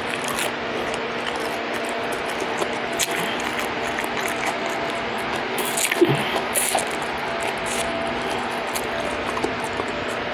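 Close-up mouth sounds of a person eating deep-fried pan trout by hand: wet chewing with many small clicks and smacks, and a sharper smack about six seconds in, over a faint steady background hum.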